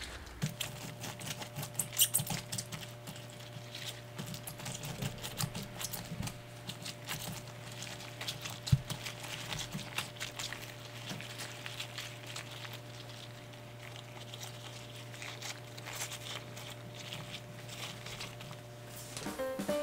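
Rubber-gloved hands working chili seasoning paste into salted napa cabbage leaves for kimchi: irregular wet squelching and crackling clicks. A steady low hum runs underneath.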